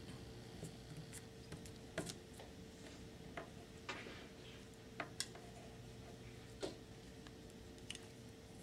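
Faint, irregular clicks and taps of hands pressing and handling Super Sculpey Firm polymer clay, about seven in all, over a steady faint hum.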